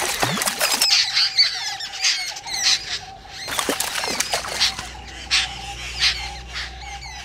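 Babblers bathing together in a small earthen water bowl: repeated splashing and wing-flapping in the water, with harsh squawking calls from the birds, most of them in the first second or so.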